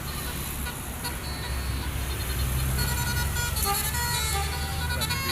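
A bus engine running with a low rumble, while a multi-tone telolet horn begins playing a tune of changing notes about halfway through.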